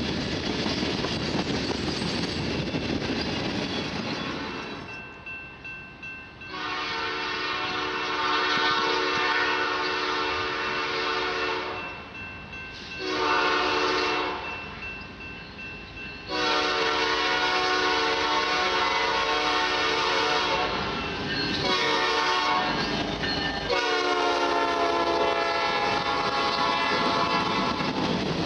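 Freight cars rolling past on the rails, then a diesel locomotive's air horn, on an EMD SD70ACu leading a Norfolk Southern freight, sounding a series of long and short blasts as the train approaches. The last long blast drops in pitch as the locomotive passes.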